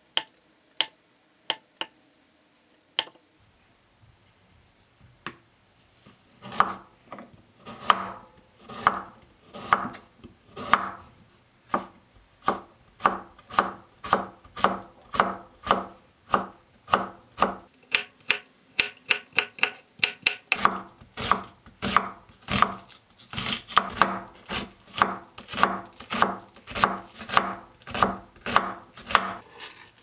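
Chef's knife striking a wooden cutting board as vegetables are cut: a few separate slicing knocks in the first few seconds, then a steady run of chopping strokes, about two a second, as carrot is cut into strips and onion is diced.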